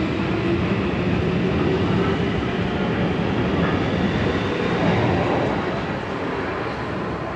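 Helsinki metro train running out along the platform of an underground station, a steady rolling rumble of wheels and motors. The noise falls away about five and a half seconds in as the last car leaves into the tunnel.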